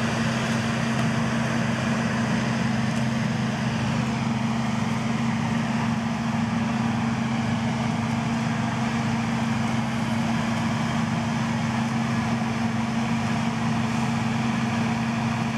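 Farm machinery engine running steadily at a constant speed, with a steady low hum and no change in pitch.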